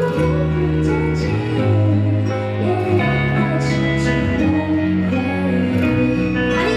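Live pop band music: an instrumental passage of held chords over a bass line that changes note every second or so.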